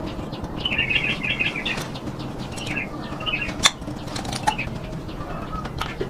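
Small birds chirping in quick bursts, twice, with a sharp click a little past halfway and a fainter click soon after, over a low steady hum.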